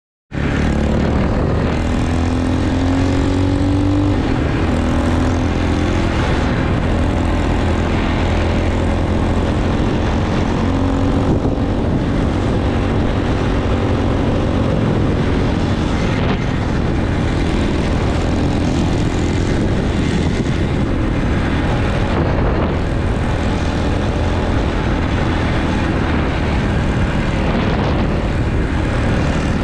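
Dirt bike engine running under way with a steady rush of wind noise on the microphone; the engine pitch climbs several times as the bike accelerates.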